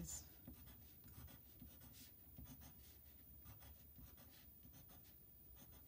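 Faint scratching of a pencil on paper, drawing short zigzag strokes, in quick irregular strokes.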